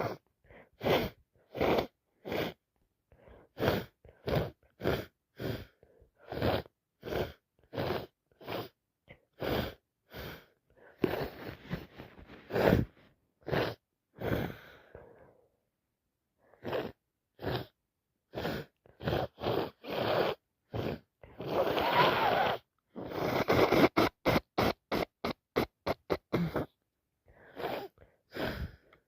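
A woman with a heavy head cold sneezing and sniffling: a long run of short, sharp breaths and sneezes, one or two a second. Two longer, denser noisy stretches break the run, one a little under halfway and one about three quarters in, followed by a quick flurry.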